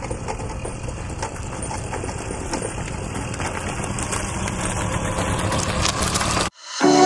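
Small motorcycle engine idling steadily, growing slightly louder, then cut off abruptly about six and a half seconds in; music starts just before the end.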